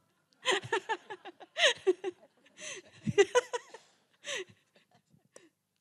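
Brief talking mixed with light laughter and chuckling, in short bursts that die away near the end.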